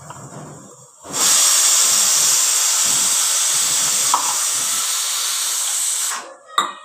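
Pressure cooker letting off steam: a loud steady hiss that starts about a second in and stops suddenly some five seconds later. A few light clicks follow near the end.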